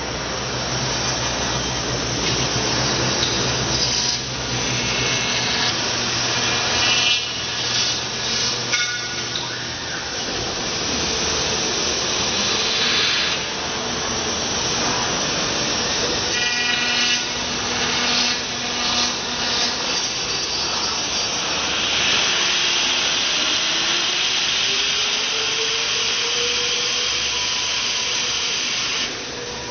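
Industrial CNC machine running and cutting: a continuous noisy machining sound with shifting tones, and a tone that rises in pitch a little past the middle.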